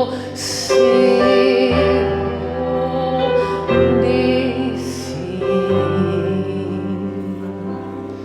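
Slow worship music: sustained keyboard chords shifting every second or two under a voice holding long sung notes.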